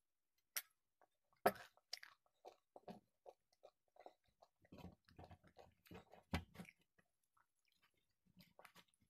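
Close-miked chewing of a mouthful of food: irregular crunches and wet smacks, the loudest about one and a half seconds in and again a little after six seconds. Near the end, fingers tear at a large fried puri.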